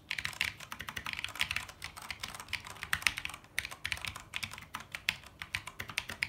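Fast typing on a Keycool K5 87-key mechanical keyboard with Cherry MX Brown switches: a dense, uneven run of sharp keystroke clicks, several a second.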